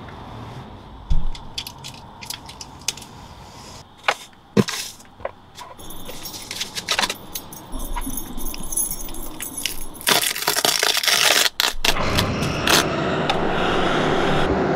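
Horror film sound effects: scattered cracks, clicks and taps, with keys jangling, then a loud harsh burst of noise about two-thirds of the way through and a noisy swell that keeps building.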